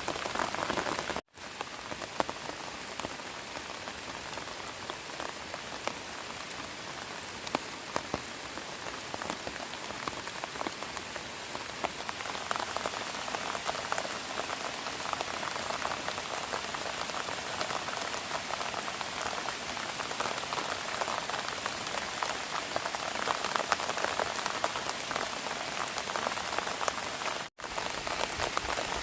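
Steady rain falling, a dense even patter of drops, broken by two brief dropouts, about a second in and near the end.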